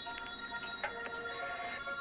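Background music with held, bell-like notes and light ticking.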